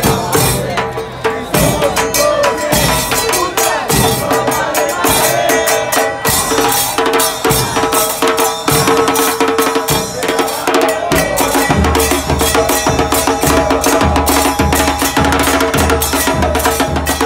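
Fan drum band of bass drums and crash cymbals pounding out a rhythm, with a crowd chanting along. About twelve seconds in, a heavy bass-drum beat of roughly two strokes a second takes over.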